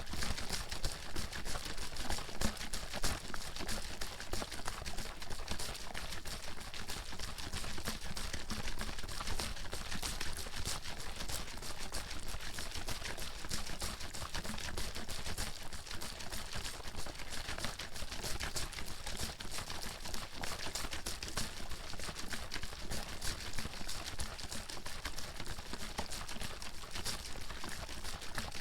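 Water bottle shaken hard and continuously: water sloshing and splashing inside, with a dense, rapid rattling of clicks.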